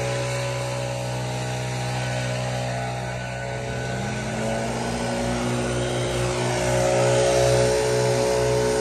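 Gas backpack leaf blower engine running steadily. About four seconds in the pitch rises as the throttle is opened, and it gets louder near the end as the blast of air sweeps the leaves.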